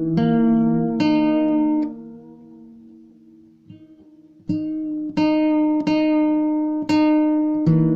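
Guitar chords plucked one at a time, each ringing out. After two chords the sound fades away for a couple of seconds, then chords start again at an unhurried pace.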